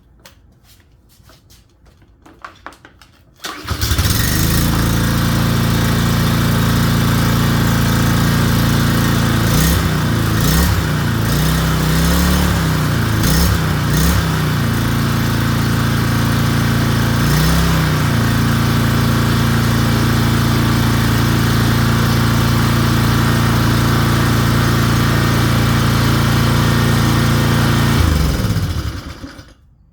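Troy-Bilt gas pressure washer's small petrol engine starting about three and a half seconds in, after a few light clicks, and running steadily after a valve seal replacement. Its pitch dips and recovers several times, then it shuts off and runs down near the end.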